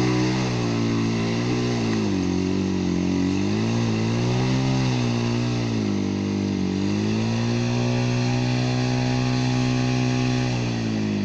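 Off-road motorcycle engine revving up and down several times, then held at fairly steady revs for a few seconds before the revs drop near the end.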